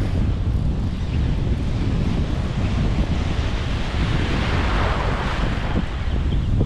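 Wind buffeting the microphone over shallow sea water, with a brief swell of water noise about four to five seconds in.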